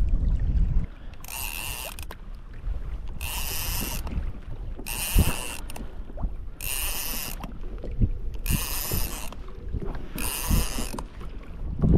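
Spinning fishing reel sounding in six short, evenly spaced bursts, about one every two seconds, as a hooked fish is pumped and reeled in. Low knocks between the bursts.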